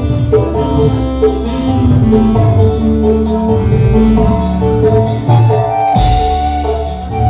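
Live band music played through a large PA sound system: a melody over bass with kendang hand drums and a drum kit, and a cymbal crash about six seconds in.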